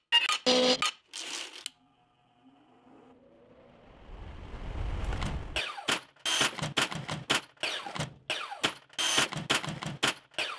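A few sharp metal clicks, then a rushing sound that swells with a low rumble and cuts off about halfway through. After that comes a quick, rhythmic run of clacks and rattling slides from metal tool-chest drawers being yanked open and slammed shut.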